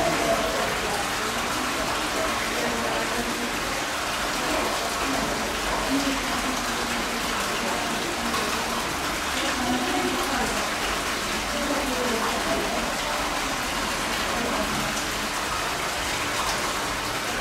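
Steady hiss of rushing or falling water, with faint voices murmuring underneath.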